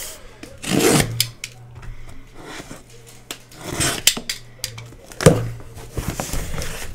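A cardboard shipping box being opened and unpacked, with cardboard and packing peanuts rubbing and scraping in several short bursts. A steady low hum runs underneath.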